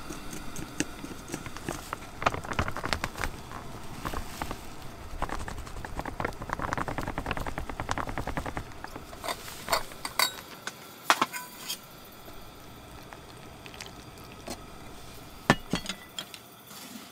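Wooden chopsticks stirring and scraping in wooden bowls: first through a thin soy dipping sauce, then through chopped chives and flour, with a few sharp clicks of chopstick against bowl in the second half.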